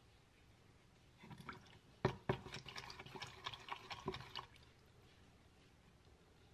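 Spoon dropping peanut butter into melted coconut oil in a glass measuring cup and stirring it: a sharp clink against the glass about two seconds in, then quick small clinks and wet sloshing that stop about four and a half seconds in.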